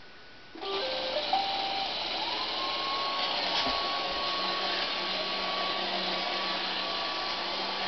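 Roomba robot vacuum starting up: a few short electronic tones about a second in, then its motors running steadily with a whine that rises and levels off about two seconds in.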